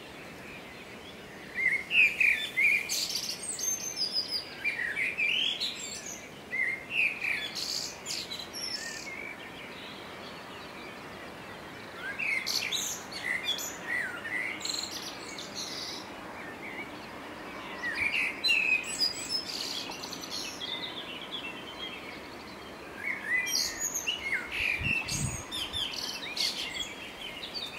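Songbirds singing at dawn: four bouts of song a few seconds long, quick chirps and whistled slides with high twitters, separated by pauses of a couple of seconds over a steady faint background hiss.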